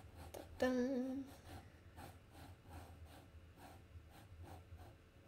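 A glass dip pen scratching across paper in quick, repeated short strokes, about three or four a second, as squiggly ink lines are drawn. A short hummed voice sound comes about half a second in.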